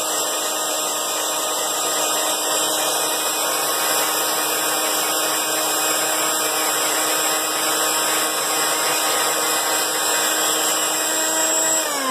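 General International BS5202 4-inch metal-cutting band saw running while its blade cuts through round metal stock held in the vise: a steady motor whine over the hiss of the cut.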